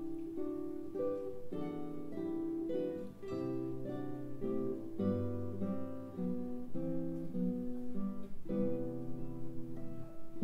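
Two classical guitars playing a duet: a steady run of plucked notes, about two a second, over held bass notes, built on repeating chord progressions.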